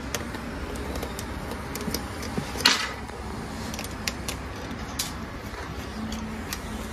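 Scattered small clicks and taps of a precision screwdriver and metal parts being handled on an opened Dell Inspiron 14 5401 laptop chassis, with one louder brief scraping clatter about two and a half seconds in. A low steady hum runs underneath.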